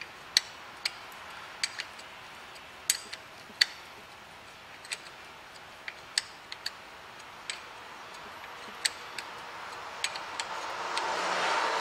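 Irregular sharp metallic clicks of a hand ratchet as the brake hose banjo bolt is wound into a new front brake caliper. A rustling noise swells briefly near the end.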